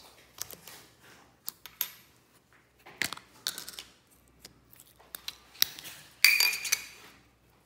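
Small hard-plastic clicks and sticky crackles as fingers handle and pry apart a toy clock filled with clear slime, with a longer, louder squeaky crackle near the end as the slime is peeled free.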